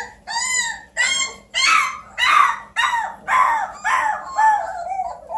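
3-week-old Bluetick Coonhound puppies howling, a run of short high cries that rise and fall, about two a second: they are hungry.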